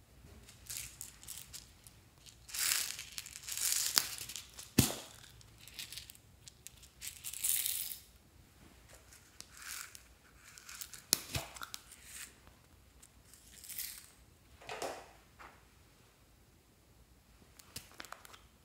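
Small plastic slime containers handled and opened by hand: irregular bursts of plastic crinkling and rustling, with two sharp clicks, about five and eleven seconds in.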